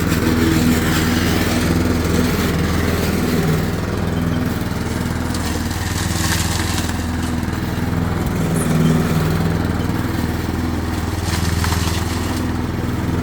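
Briggs & Stratton 650 series 190cc single-cylinder petrol engine of a self-propelled lawn mower running steadily at a constant speed.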